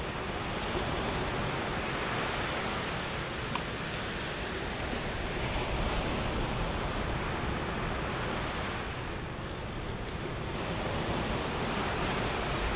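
Surf washing onto a beach, a steady rush that swells and ebbs slowly, with wind on the microphone and two faint ticks a few seconds apart.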